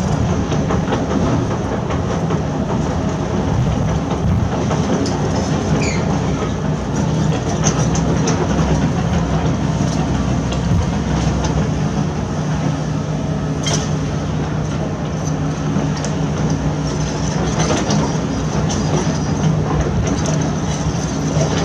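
Heavy construction machinery running: a steady diesel engine drone with scattered metallic clicks and clanks, and one sharp knock about 14 seconds in.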